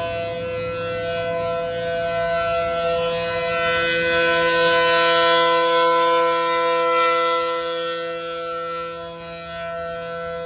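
ACA Allertor 125 rotating outdoor warning siren with a 9/12-port rotor, sounding a steady two-note chord with no rise or fall in pitch, as in the alert signal. It gets louder around the middle, then fades as the horn turns away.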